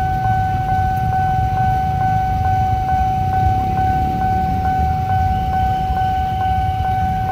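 Low rumble of a CC203 diesel-electric locomotive coming slowly closer, under a steady high tone that sounds without a break, with faint even ticks about twice a second.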